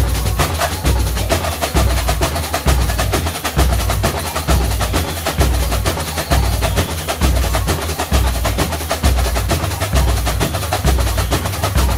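Samba school bateria playing a steady samba rhythm: regular deep surdo bass-drum beats under dense, fast snare and small-drum strokes.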